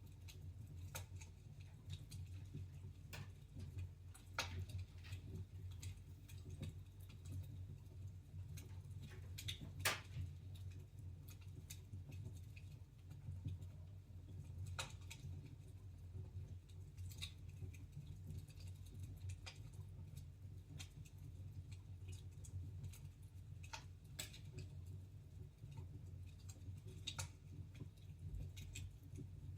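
Wood fire in a fireplace crackling, with irregular small pops and one sharper pop about a third of the way in, over a steady low hum.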